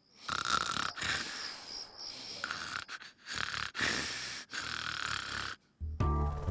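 Cartoon wolf snoring in his sleep: a run of long, noisy snores with short pauses between them. Music comes in near the end.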